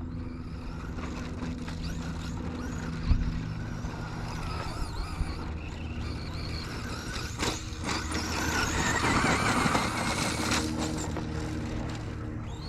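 Traxxas Slash RC truck driving with its 3300kV brushless motor, the motor and drivetrain whining up and down with the throttle over the noise of its tyres. A sharp knock comes about three seconds in, and the truck gets louder for a couple of seconds around nine seconds in.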